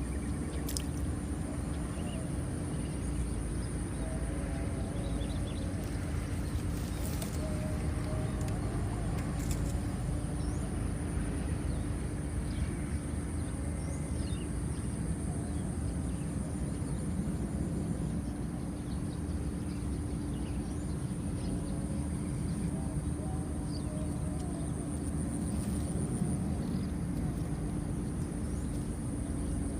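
Steady outdoor ambience: a continuous low rumble with a thin, high, unbroken buzz above it and a few faint short chirps scattered through.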